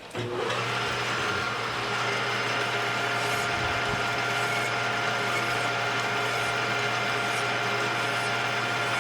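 Metal lathe starting up and then running steadily, with the workpiece spinning so a hand file can clean it up.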